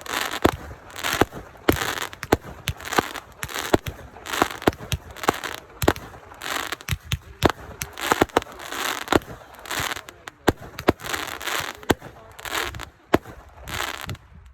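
Consumer fireworks going off in quick succession: sharp bangs, each followed by a short burst of crackling, about one to two a second, stopping abruptly near the end.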